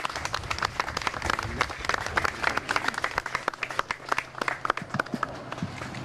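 A crowd applauding, dense hand-clapping that thins out near the end.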